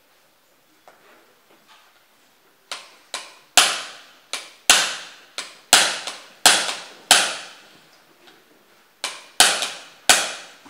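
Small hammer striking a steel punch set against a Walther PPQ M2 pistol on a wooden block, knocking a part out during detail disassembly: about a dozen sharp metallic taps, each with a short ring. They come in a quick run, then three more after a pause about eight seconds in.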